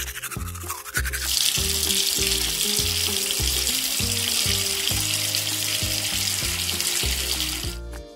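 Brief toothbrush scrubbing, then tap water running as a steady hiss from about a second in until just before the end, over light background music.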